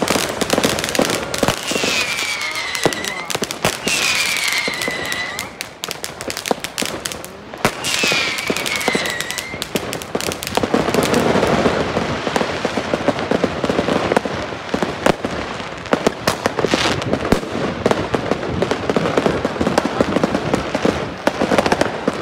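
Fireworks going off at close range: a dense crackle of firecrackers and sharp bangs. Within the first ten seconds there are three falling whistles from whistling fireworks.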